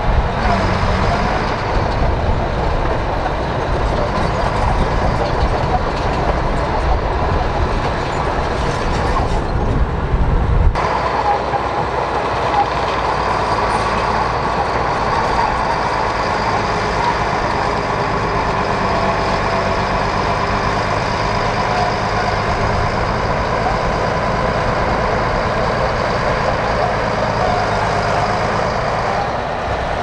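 Komatsu crawler bulldozer's diesel engine running steadily under load as it pushes soil. About ten seconds in the sound changes abruptly and loses much of its low rumble.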